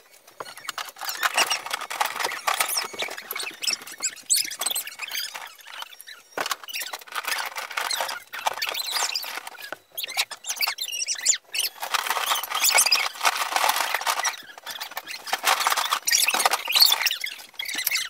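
Plain wooden building blocks clattering and clicking against one another as they are picked up and stacked, in irregular runs of knocks with short pauses.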